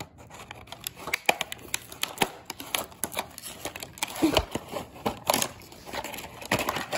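Cardboard and plastic toy packaging being handled and pulled apart: irregular rustling, crinkling and clicking, with a thump just past four seconds in.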